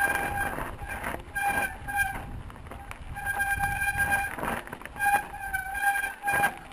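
Mountain bike disc brakes squealing in a string of on-off squeals, each held for under a second to about a second, as the rider brakes repeatedly. Underneath it the bike rattles and knocks over rocky ground, with wind on the helmet or bike camera.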